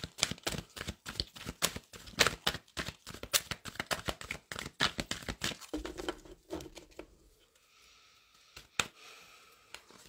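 A deck of large oracle cards being shuffled by hand: a fast patter of card edges flicking against each other for about the first six seconds, then slower, quieter handling with an odd single click.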